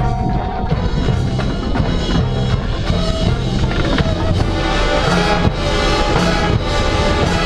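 Drum and bugle corps playing its field show: brass horns holding and changing loud chords over a marching percussion section's drums.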